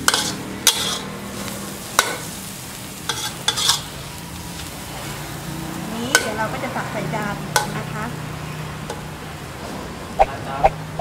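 Metal spatula scraping and tapping against a wok as chopped mustard greens and egg are stir-fried, with irregular clinks over a faint steady sizzle from the still-hot pan.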